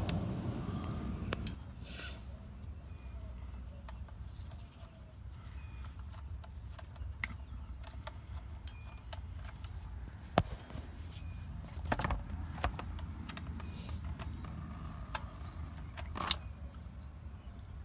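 Scattered metallic clicks and knocks, the sharpest about ten seconds in, over a steady faint low rumble.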